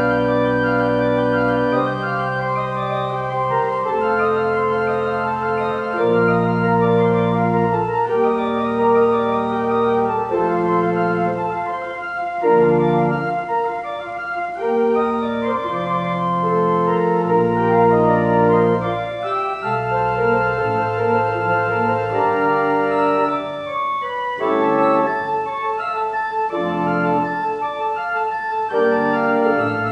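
Two-manual church organ playing full held chords over a bass line that moves to a new note every second or two.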